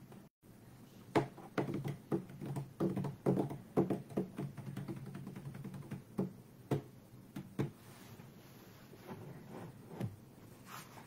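Irregular muffled knocks and clicks, several a second for about seven seconds, then a few sparser ones near the end.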